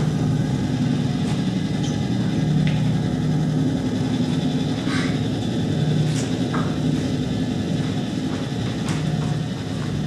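Steady low ambient drone, a dark rumble with faint hum tones that swell and fade, and a few faint ticks scattered through it.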